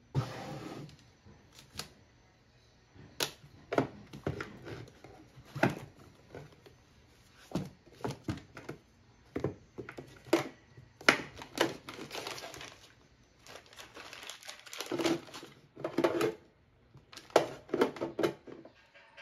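Things being moved about in a desk drawer by hand: a string of knocks and taps from notebooks and objects, with crinkling of plastic packaging at times.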